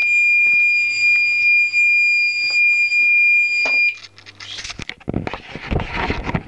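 Fire alarm sounder giving a steady high-pitched tone, cutting off sharply about four seconds in. Rustling and knocking handling noise follows.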